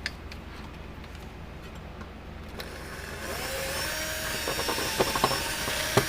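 Electric drill running with a larger bit, cutting into the head of a stuck fastener that holds a fence charger's transformer; it starts about three seconds in with a steady whine, and a few sharp clicks come near the end.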